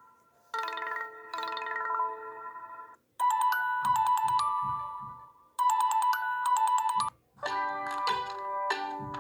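Stock Android ringtones from a Multilaser E phone, played one after another. A chiming tone with two strikes comes about half a second in, then a bright bell-like tone that plays twice from about three seconds in, then a different melodic tone from about seven and a half seconds.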